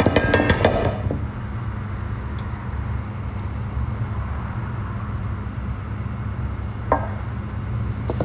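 Rapid metallic clinking of a fork against a stainless steel mixing bowl for about the first second, over a steady low hum; a single knock about seven seconds in.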